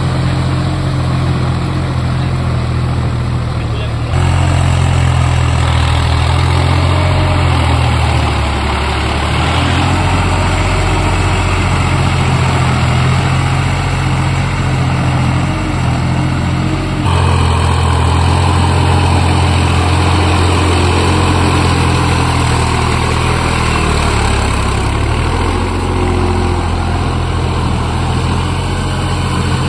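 Massey Ferguson 4WD tractor's diesel engine running steadily under load as it pulls a rotary tiller through wet, muddy soil. The sound shifts abruptly twice, about 4 and 17 seconds in.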